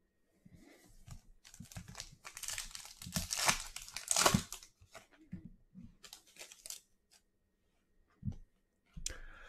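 Crinkling and tearing of a trading-card pack wrapper being handled, in irregular bursts, loudest about three to four seconds in, with a shorter burst around six seconds in.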